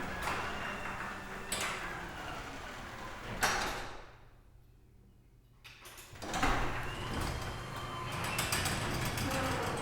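Sectional garage door running along its tracks with a rattling rumble, ending in a thump about three and a half seconds in. After a brief near-silent pause, it starts moving again with a jolt about six seconds in and keeps running.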